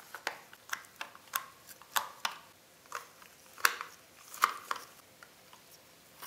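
Irregular light clicks and taps of a small precision screwdriver and gloved hands on a Toniebox's white plastic housing while its small lid screws are being undone, the sharpest taps a little past halfway.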